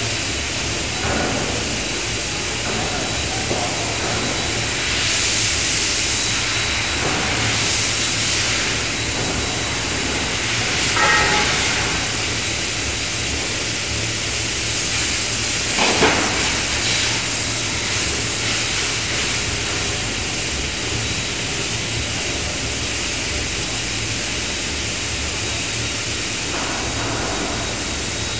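Steady hiss and hum of forge-shop machinery around an electro-hydraulic die forging hammer, with a faint steady high whine. It has several louder hissing surges and one sharper knock about sixteen seconds in.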